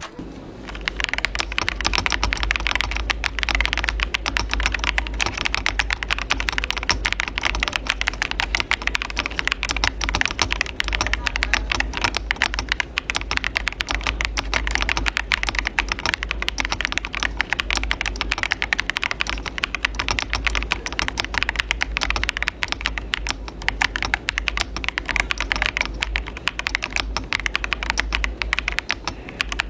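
Fast continuous typing on a MageGee Captain75 aluminium-cased 75% mechanical keyboard, with pre-lubed Blueberry linear switches, double-shot PBT keycaps, an FR4 plate and gasket mount: a dense run of key clacks as a typing sound test. A steady low hum runs underneath.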